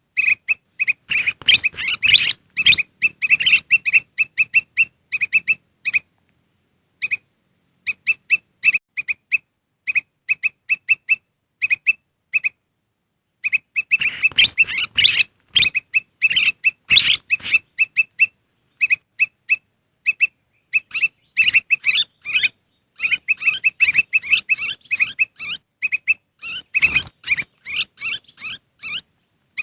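Bird-lure recording of kutilang emas (bulbul) calls: fast, busy runs of short, sharp chirps repeated over and over, breaking off briefly twice.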